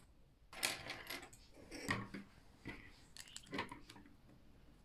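Meccano Junior plastic parts clicking and clacking as they are handled and fitted together, with a plastic nut being threaded onto a plastic bolt. Irregular clusters of short clicks start about half a second in.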